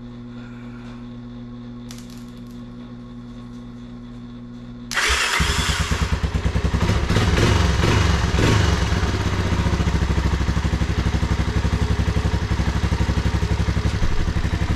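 A 1985 Honda ATC 250SX's single-cylinder four-stroke engine is started after a few seconds of steady low hum. It catches on the first try about five seconds in and runs loud and evenly, its revs wavering briefly before it settles. The engine starts easily despite having sat for years.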